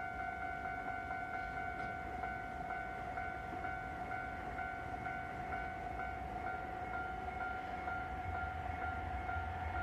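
Japanese railway level-crossing warning bell ringing steadily, a pitched electronic tone pulsing about twice a second. Near the end the low rumble of an approaching train grows under it.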